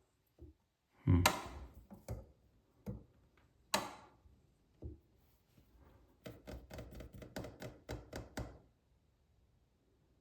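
Sharp clicks and knocks of the faucet handle and its parts being fitted back on. The loudest comes about a second in, and a quick run of about a dozen ticks follows near the end.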